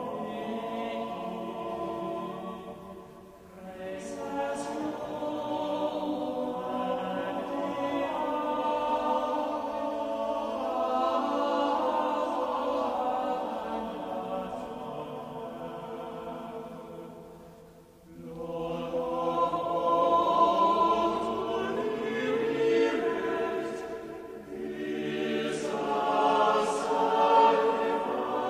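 Choir singing a gospel song in long held phrases, with brief breaks about three and a half and eighteen seconds in.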